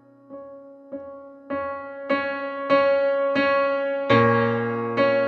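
Background music: a keyboard strikes repeated notes about every 0.6 s, growing louder, and a deep bass note comes in about four seconds in.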